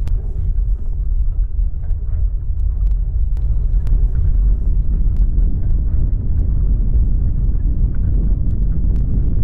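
Earthquake ground-shaking rumble: a deep, continuous rumble with scattered rattling clicks, growing slightly louder over the first few seconds as the shaking arrives.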